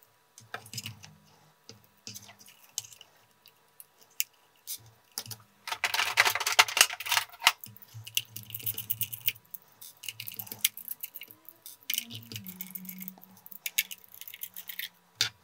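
A precision screwdriver turning small screws out of a plastic camera casing: scattered light clicks and scrapes of the bit and screws, with a louder stretch of scraping and rattling about six seconds in.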